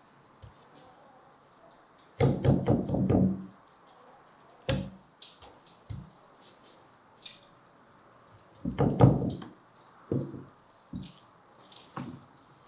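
Kitchen knife knocking against a cutting board while trimming and slitting raw chicken legs: two short bursts of quick chopping taps, about two and nine seconds in, and a few single knocks between and after.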